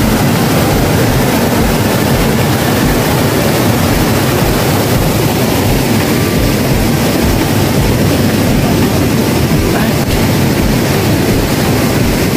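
Rushing water of a rocky mountain stream cascading over boulders: a loud, steady roar that does not change.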